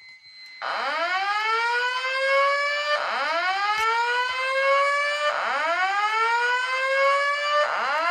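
Voice evacuation speaker sounding a whoop alert tone. It starts under a second in and then repeats: each whoop is a rising sweep lasting about two and a third seconds, and a new one begins as soon as the last ends. It is the alert signal that comes before the spoken evacuation message.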